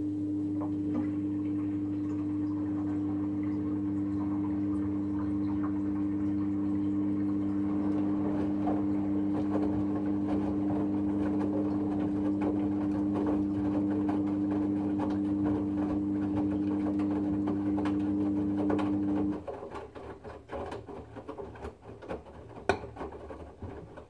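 LG front-loading washing machine tumbling its drum through water on a wash cycle: the motor hums steadily over water sloshing. About 19 seconds in the motor hum stops, leaving quieter sloshing and scattered clicks, with one sharp click near the end.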